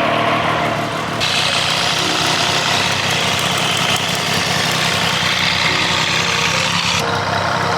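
Triumph 765 inline-three motorcycle engine idling, with a ticking rattle mixed into the exhaust note: the abnormal noise that the title lays to the chain. A hiss joins about a second in and stops near the end.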